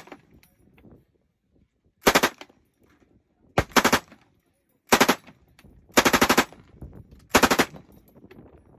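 Automatic firearm fired on full auto in about six short bursts of a few rounds each, with pauses of about a second between them.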